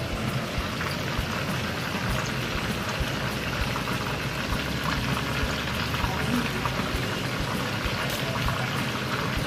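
Rockfish frying in a pan of hot oil, sizzling with a steady hiss and small pops.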